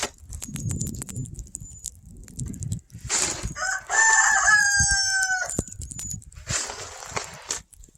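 A rooster crowing once, a drawn-out call of about a second and a half that falls slightly in pitch, starting about four seconds in. Crunching and scraping sounds in the snow come before and after it.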